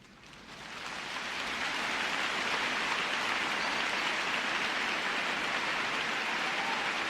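A steady rain-like hiss that fades in over the first two seconds, then holds level.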